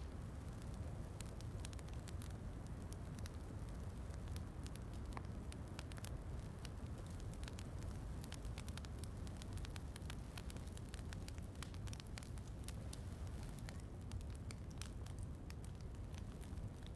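Wood fire crackling in a fireplace, with many small, sharp pops at irregular intervals over a steady low rumble of rain.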